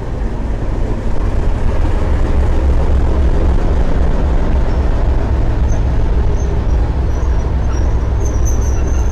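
Class 37 diesel locomotive's English Electric V12 engine running at low revs as it moves along the platform, a heavy steady rumble. A faint high-pitched squeal joins in over the last few seconds.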